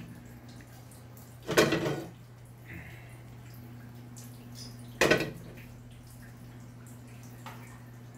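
Aluminium wok clanking against the stove twice, about a second and a half in and again about five seconds in, as it is lifted and tilted to spread the cooking oil and set back down. A steady low hum runs underneath.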